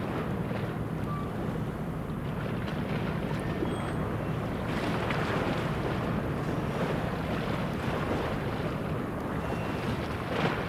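A police patrol boat's engine running with a steady low hum, mixed with wind buffeting the microphone and water sloshing.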